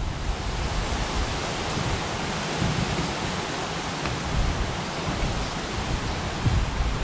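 Wind buffeting the microphone: a steady rushing hiss with uneven low rumbles as gusts hit.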